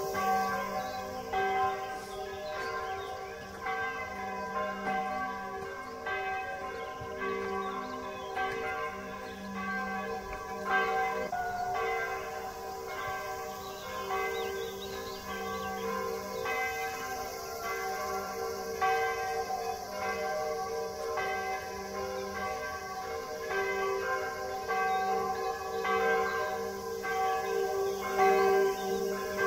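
Bells struck over and over, about once a second, their notes ringing on into one another in a steady hum.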